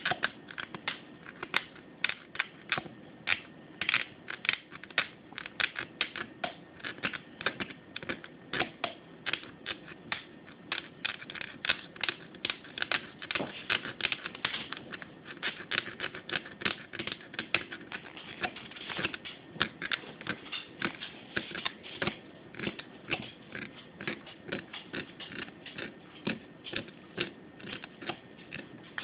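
Knife blade scraping the shellac coating off a solar laminate's metal bus bar in short, quick strokes, about two or three a second. It is cleaning the bar bare so that a solder joint will take.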